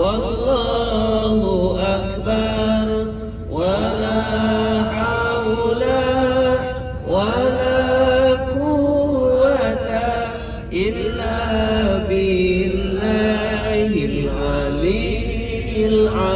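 A single male voice chanting an Islamic devotional chant, long sliding, wavering phrases broken by short pauses for breath.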